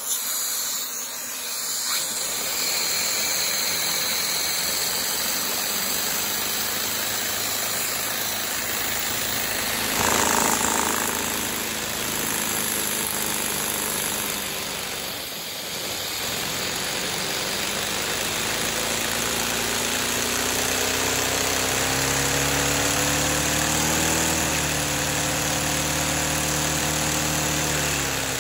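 LEGO vacuum engine running at high speed: a steady rapid mechanical whir with a hiss of air, its pitch climbing slowly over the second half.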